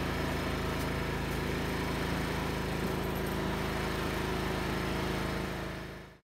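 WEN 56203i inverter generator's small four-stroke engine running at a steady speed, left running to break it in; the sound fades out about six seconds in.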